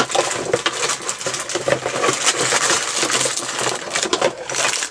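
Packaging rustling and crinkling, with small brass fittings clinking together, as an air-compressor accessory kit is rummaged through by hand. The sound is a busy, irregular clatter of many small clicks.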